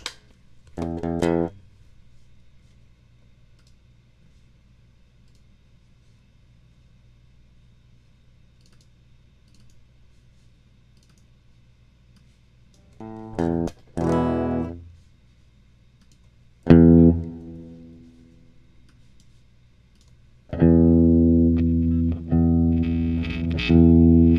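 Electric guitar played through the Waves GTR amp-simulator plugin. A short strum comes about a second in, a few notes around the middle and a single chord left to ring, then repeated chords from about 20 seconds in. A faint low hum fills the gaps.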